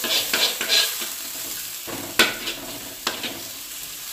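Pork, egg and dried shrimp stir-frying in hot oil in a wok: a steady sizzle while a metal spatula stirs and scrapes against the pan. One sharp clink of the spatula on the wok comes about two seconds in.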